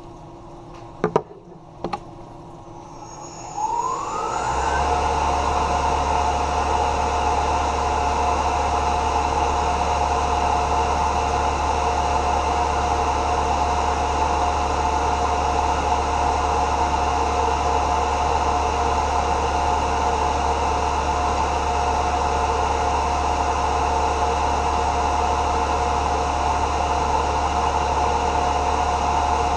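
Tormach 1100 CNC mill spindle: two sharp clicks, then a whine rising in pitch as it spins up about four seconds in. It then runs steadily at speed with a low hum.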